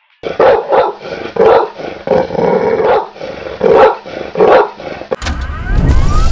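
A dog barking as a logo sound effect: a run of about seven loud barks. About five seconds in, a rising whoosh over a low rumble takes over.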